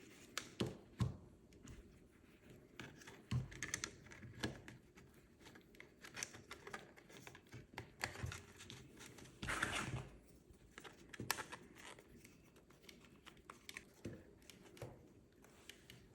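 3D-printed plastic headphone parts being handled and adjusted: scattered light clicks and scrapes, with a longer scrape about nine and a half seconds in.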